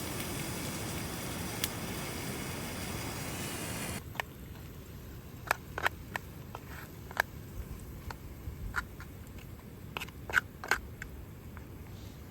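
Steady hiss of rain on the tent and tarp. About four seconds in it cuts off abruptly to a quieter background broken by scattered small sharp clicks and ticks.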